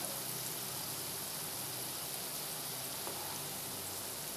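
Onion-and-spice masala sizzling steadily in hot oil in a non-stick wok, being fried on low heat until the oil separates.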